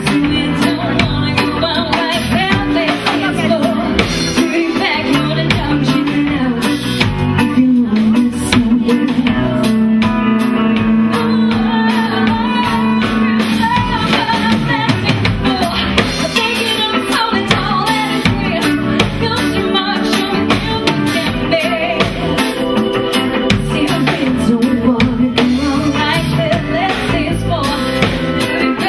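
Live band playing: a woman singing over electric guitar, drum kit and keyboard.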